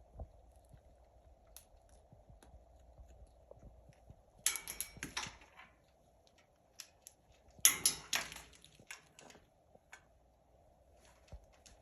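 Scarlet macaws crunching snacks in their beaks: scattered small clicks and cracks, with two louder crunching bursts about four and a half and eight seconds in.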